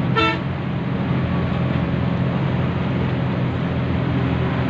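Highway coach's engine running steadily at speed with road noise, heard from the front of the bus. One short horn blast right at the start.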